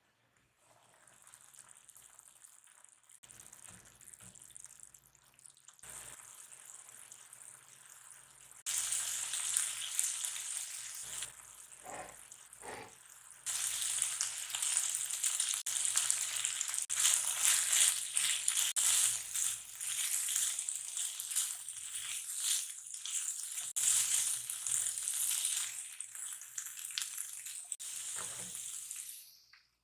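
Food sizzling in hot oil in a pan: a crackly hiss that starts faint, grows suddenly louder about nine seconds in and again about fourteen seconds in, and stops abruptly at the end.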